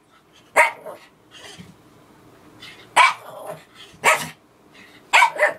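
A dog giving four short bark-like calls, the last a quick double, as it tries to say "thank you" on command.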